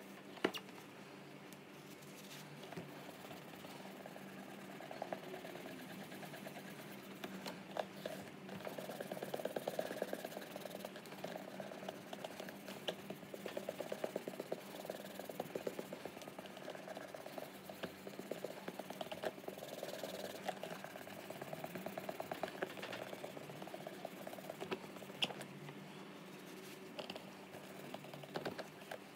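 Cotton cloth rubbed briskly back and forth over the leather of White's Semi-Dress boots while they are buffed after a wipe-down. The rubbing comes in rhythmic stretches with small clicks of handling, over a steady low hum. A sharp knock sounds just after the start.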